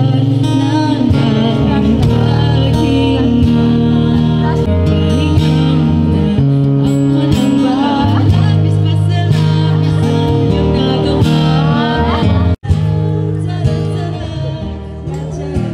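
A woman singing live to acoustic guitar accompaniment. The sound cuts out for an instant about twelve and a half seconds in, and is a little quieter after that.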